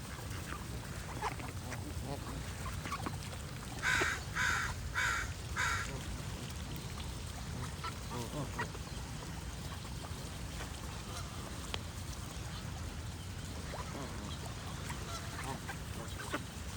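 Geese and ducks calling: a run of four loud honks about half a second apart, about four seconds in, among scattered softer calls over a steady low rumble.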